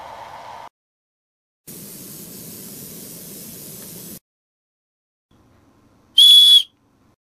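Paint spraying with a steady hiss for about two and a half seconds; then, about six seconds in, a small plastic whistle fitted to a pill bug capsule toy is blown once: a loud, high, steady tone lasting about half a second.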